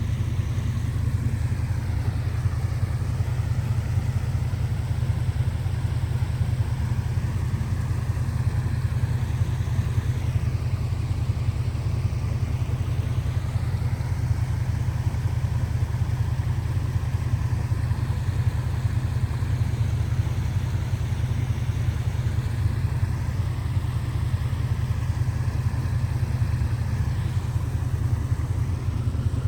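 Steady rushing of a fast-flowing creek, a continuous low, even noise.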